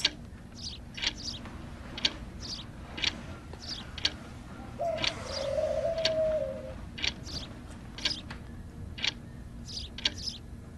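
Birds chirping in short, sharp, repeated chirps about once or twice a second, with a drawn-out lower tone lasting about two seconds near the middle.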